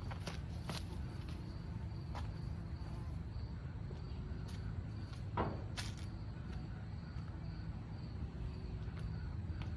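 Insects, crickets among them, chirring steadily in the background, under a steady low rumble. Scattered soft clicks and scrapes come through, the strongest about five and a half seconds in.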